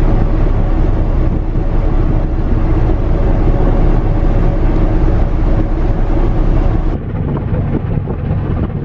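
Wind on the microphone over the steady drone of a cargo ship under way. About seven seconds in, the sound drops a little and turns duller.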